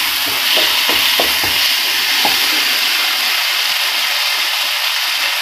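Onions and capsicum in tomato sauce sizzling in a non-stick frying pan, with a few knocks of a spatula stirring during the first couple of seconds, then a steady sizzle.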